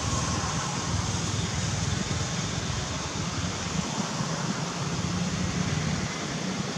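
Steady rushing outdoor background noise with a low rumble underneath, unchanging throughout, with no distinct calls or knocks.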